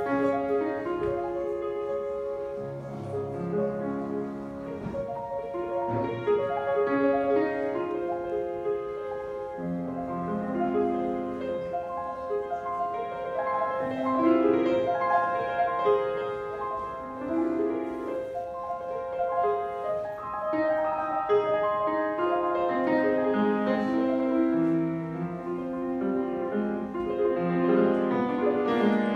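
Grand piano played solo: a flowing piece with a moving bass line under sustained chords.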